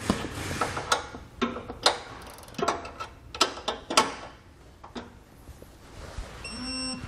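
Digital torque wrench ratcheting in irregular clicks as a bolt is tightened to spec, with a beep near the end as the wrench signals that the target torque is reached.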